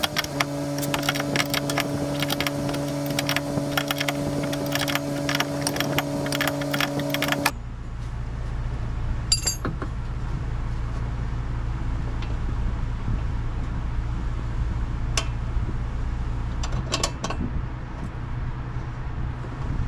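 A small handheld power tool runs with a steady hum and rapid clicking for about seven and a half seconds, then stops abruptly. After that come a few light metallic clinks of tools over a low steady rumble.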